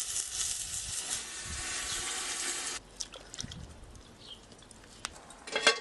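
Water bubbling in a cast-iron pot, a steady hiss that stops abruptly about three seconds in. After that there are only a few faint clicks and a light knock.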